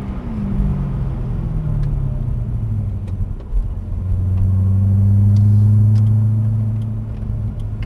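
2010 Corvette ZR1's supercharged 6.2-litre V8 heard from inside the cabin, its note falling as the car slows off the throttle. It then runs at a steady low drone at about 1,500 rpm, loudest around five to six seconds in.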